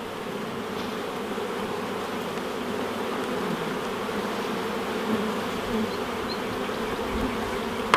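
Many honey bees buzzing around an opened nuc hive: a steady, many-winged hum with a clear low pitch.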